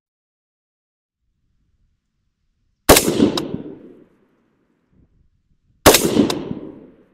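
Two unsuppressed rifle shots from an 11.5-inch Griffin Mk2 5.56 AR short-barreled rifle, about three seconds apart. Each is a sharp crack followed by an echo that fades over about a second.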